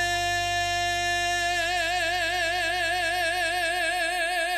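Male singer holding one long closing note of a ballad, steady at first, then with a wide vibrato from about a second and a half in, over sustained backing accompaniment.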